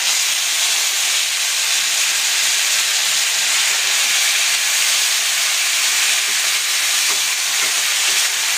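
Pieces of marinated chicken frying in hot oil in a pan: a loud, steady sizzle and splutter.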